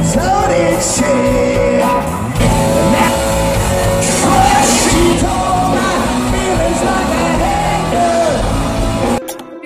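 Live rock band playing with a male lead singer, amplified through a stage PA and picked up from the crowd; the music cuts off abruptly just before the end.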